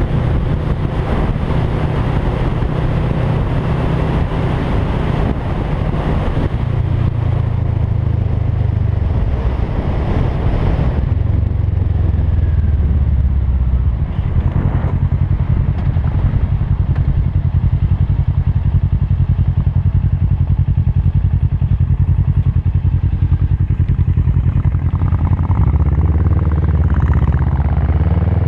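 Motorcycle engine running under way, heard from the rider's own bike, with wind rush heavier in the first third. The engine note steps up and down several times with throttle changes, and near the end it climbs as the bike accelerates.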